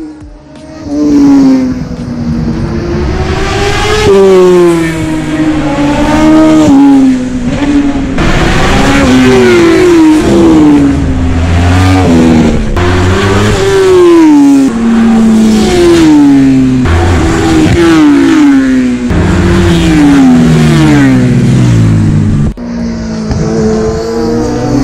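Racing motorcycles passing one after another at full throttle, close to the road edge. Each engine note climbs through the gears and falls away as the bike goes by, with a brief lull a little before the end.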